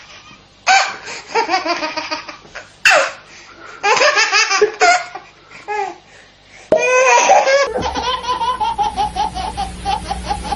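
Laughter in a string of short separate bursts of rapid ha-ha pulses with brief pauses between them, then a longer unbroken laugh from about three quarters of the way in.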